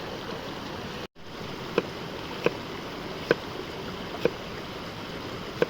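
Steady rushing of a stream, broken by a brief cut to silence about a second in. Five sharp knocks follow, spaced unevenly less than a second apart.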